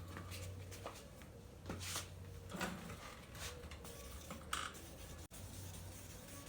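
Sandpaper being rubbed by hand over a plastic headlight lens in short, irregular scratchy strokes.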